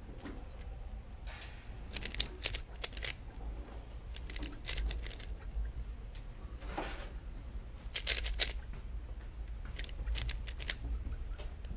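3x3 puzzle cube being turned by hand: quick runs of plastic clicks as its layers snap round, in several short bursts with pauses between.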